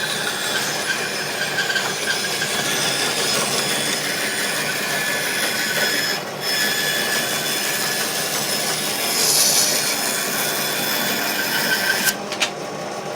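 General 490 bandsaw's blade cutting through a board in a test cut: a steady sawing noise with a faint high whine, which breaks off briefly about six seconds in and stops abruptly near the end, followed by a few light knocks.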